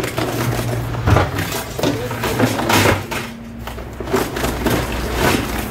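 Irregular clatter and knocks from handling metal barbecue gear at a barrel grill, about five sharp strikes spread over a few seconds, over a steady low hum.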